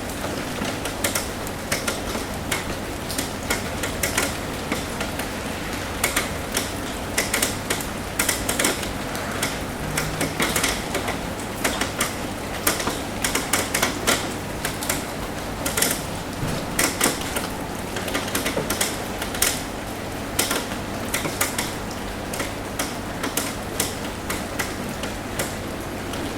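Raindrops tapping on a roof: many irregular, sharp individual taps, several a second, over a steady hiss of rain.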